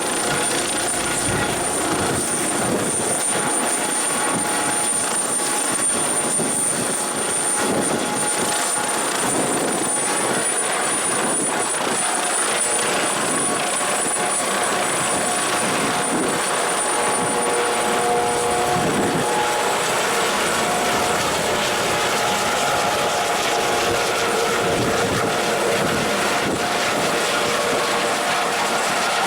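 Rescue helicopter running steadily, its rotor noise overlaid by a constant high-pitched turbine whine.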